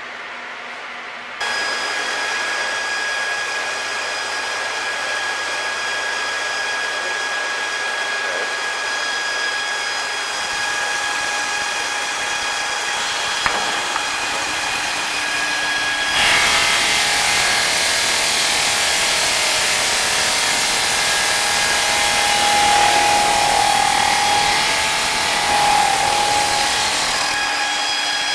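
Stone cross-cutting saw starts up suddenly with a steady whine of several tones; about 16 seconds in a louder hiss takes over as the circular blade cuts into the wet granite slab, easing near the end.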